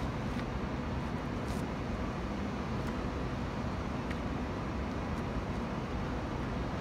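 Steady outdoor city background noise: a low, even rumble like distant traffic, with a faint steady hum and a few faint clicks.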